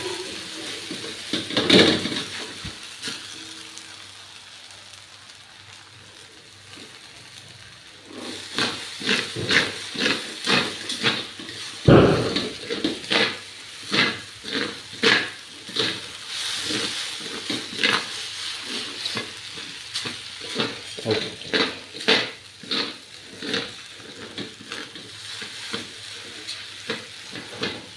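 Spatula scraping and tossing instant noodles in a steel wok over a steady sizzle of frying. Quieter for a few seconds, then quick repeated strokes about two a second from about eight seconds in, with one loud knock on the wok near the middle.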